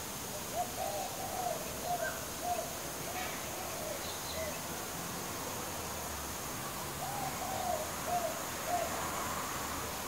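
Young laughing kookaburra making its soft gurgling call, the weird noise of a hungry baby kookaburra. It comes as two runs of short notes, each rising and falling in pitch, about two a second.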